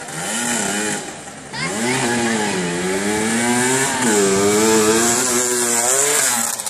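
Suzuki RM 125 two-stroke motocross bike's single-cylinder engine revving hard as it is ridden, the revs climbing sharply about a second and a half in and then rising and falling repeatedly. It gets louder as the bike passes close near the end.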